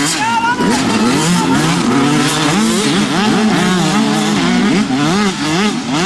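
Several youth motocross bikes with small two-stroke engines revving as they race. Their pitches rise and fall and cross one another continuously.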